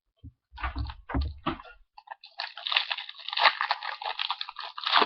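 A foil Yu-Gi-Oh! booster pack being handled with a few soft bumps, then torn open and crinkled for about three seconds.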